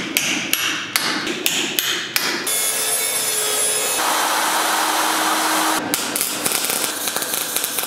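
About six sharp hammer blows on the steel head of a rusty sledgehammer, which is clamped in a vise with the split remains of its old wooden handle. A power tool then runs steadily as a sanding disc grinds the rust off the head, and the grinding changes character a couple of times.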